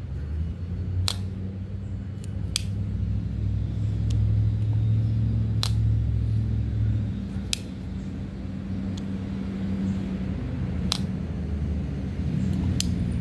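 Sharp clicks from a Cold Steel Counterpoint 1 folding knife being handled, opened and closed, about six in all and a few seconds apart, over a steady low rumble.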